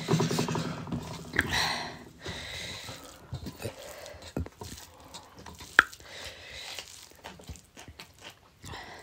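Mukbang eating sounds: hands mixing rice and curry on steel plates, chewing and mouth noises, with a short hummed voice sound at the start and a sharp click about six seconds in.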